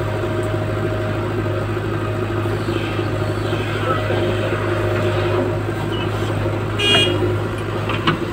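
JCB 3DX backhoe loader's diesel engine running steadily under load while the backhoe digs soil and lifts it into a trolley. A brief high-pitched beep comes near the end.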